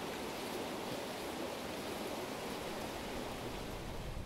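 Creek water running, a steady even rush.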